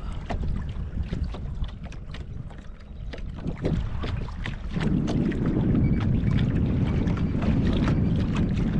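Wind buffeting the microphone with a low rumble that grows stronger about five seconds in, with small splashes and water slapping against the kayak's hull.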